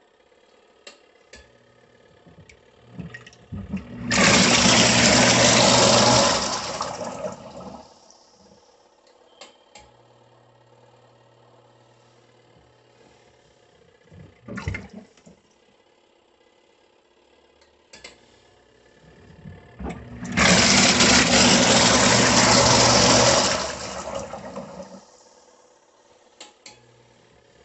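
Compact twin tub washing machine's wash tub churning water in bursts of about three seconds, with a steady motor hum. The bursts come about four seconds in and again about twenty seconds in, with quieter stretches of hum and a few clicks in between.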